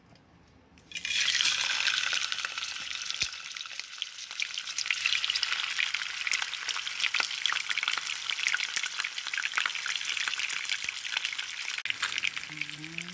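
Whole tilapia frying in hot oil in a frying pan: dense sizzling and crackling that starts suddenly about a second in and keeps going.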